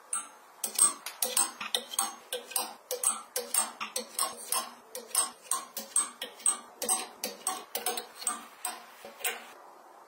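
Thin metal clothes hangers clicking and clinking against a metal closet rail and each other as garments are hung and slid along it, in quick, uneven clicks about two to three a second that stop shortly before the end.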